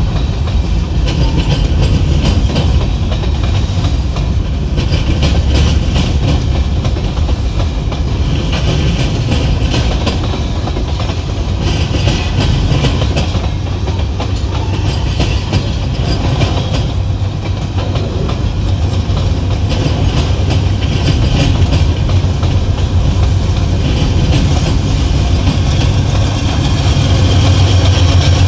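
A train rolling past at close range: steel wheels clicking and clattering over rail joints under a steady low rumble. The rumble grows louder near the end.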